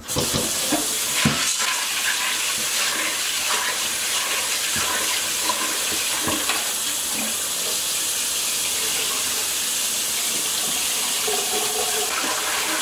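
Kitchen tap turned on and running steadily into a pot while small red peas are washed in it, with a few light knocks of the pot.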